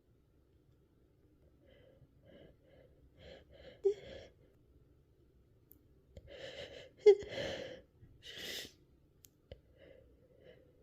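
A woman sneezing: catching breaths build up to a short, sharp sneeze about four seconds in, then more breaths and a louder sneeze about seven seconds in, followed by a hissing breath. The tickly nose comes from the tail end of a cold.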